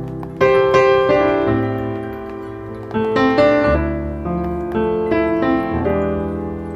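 Background piano music: single notes and chords struck one after another, each ringing on and fading.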